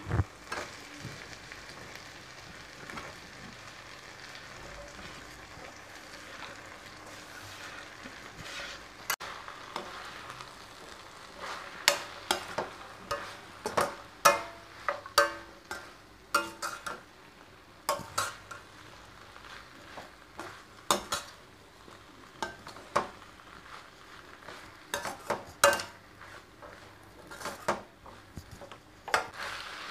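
Cut parotta pieces being stirred into onion-tomato masala frying in a pan: a steady low sizzle, with the perforated steel spatula scraping and clanking against the pan in irregular strokes from about nine seconds in.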